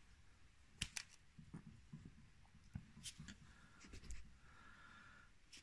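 Near silence broken by a few faint clicks and knocks, two pairs about a second and three seconds in, and a low bump about four seconds in.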